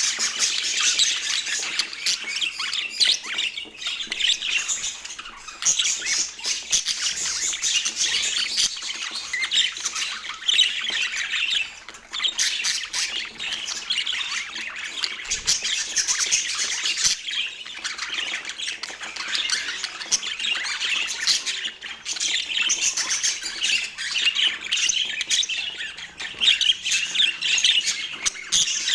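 Budgerigars chattering and squawking in a dense, continuous stream of quick chirps and warbles.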